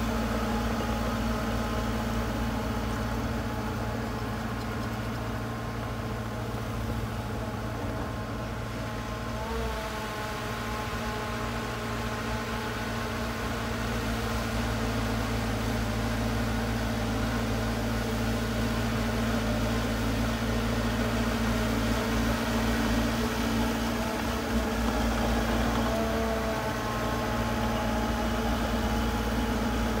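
Diesel engine of heavy earthmoving machinery running steadily, its pitch shifting slightly a couple of times.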